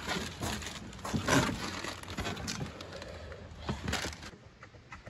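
Irregular knocks and scuffs of a cardboard box of snack packets and a bus's rear compartment door being handled, the loudest knock a little over a second in.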